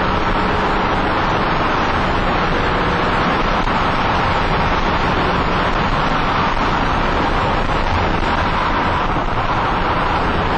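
Steady road and wind noise inside a car's cabin travelling at highway speed, an even rushing hiss that does not change.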